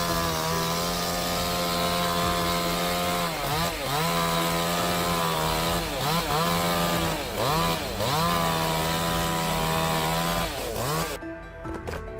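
Two-stroke chainsaw running at full throttle, cutting wood. Its pitch dips briefly and climbs back several times as the throttle is eased and reapplied. Shortly before the end the saw sound breaks off abruptly, giving way to quieter clicking.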